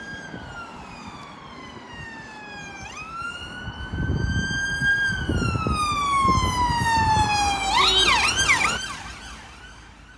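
Ambulance van siren on a slow wail that sweeps down and back up, switching about 8 seconds in to a fast yelp as the van passes, with its engine and tyre noise swelling as it goes by. The siren fades near the end.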